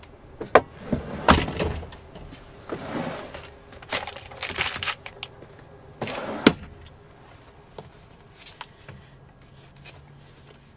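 Plastic storage drawers in a truck cab being slid open and shut: sliding scrapes and several knocks, the loudest about six seconds in, then only small faint knocks.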